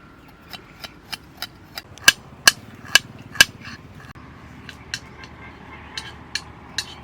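A run of sharp knocks with a slight ring, about two to three a second and loudest near the middle, then a short pause and a few lighter knocks near the end: ginger being struck repeatedly as it is prepared by hand.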